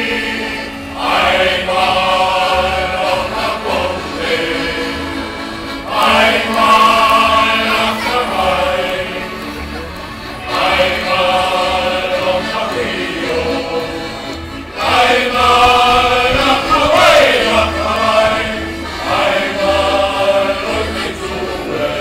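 Male choir singing a German sea shanty over the stage PA, in phrases of a few seconds each with short breaths between them.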